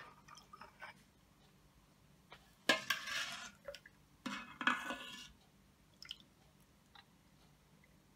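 Steel ladle clinking on a metal pot and pouring custard mixture into cups: a sharp clink at the start, then two splashing pours of about a second each, and a few light ticks of the ladle afterwards.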